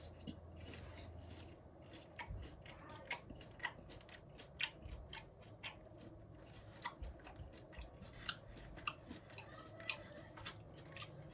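Faint crunching and chewing of nacho chips: scattered short crisp cracks, about one or two a second.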